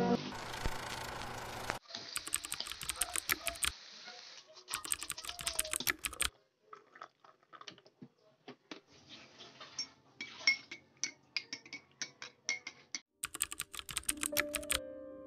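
Short bursts of rapid, light clicking and clinking, several clicks a second. Music plays briefly at the start and comes in again near the end.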